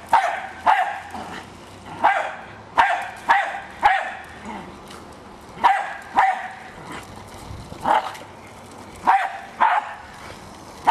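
Jack Russell terrier barking at a remote-controlled toy car: about a dozen sharp barks, some single and some in quick pairs, at irregular gaps.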